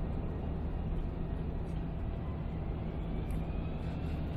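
Steady low hum and rumble of aircraft ground machinery around a parked jet, with a faint whine rising in pitch in the second half.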